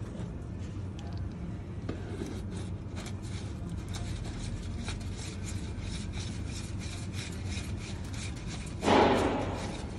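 Spin-on transmission oil filter on a MAN TGX truck being turned by hand on its mount: gloved hands and the canister rubbing and scraping in short strokes, with one louder scrape about nine seconds in.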